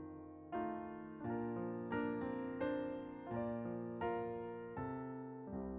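Soft piano music: slow chords struck about every three-quarters of a second, each one ringing and fading.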